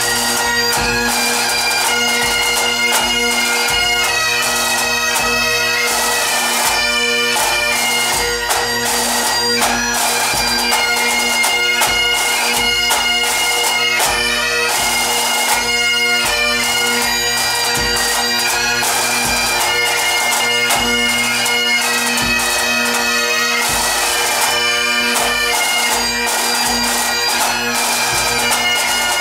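Pipe band playing: Great Highland bagpipes sounding a march melody over their steady drones, with drums beating along.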